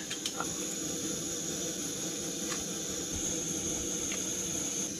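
Steady hiss of food cooking on a stove, with a few light clicks near the start.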